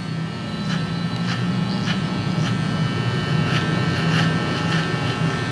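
Electric hair clipper running with a steady buzz as it cuts hair over a comb.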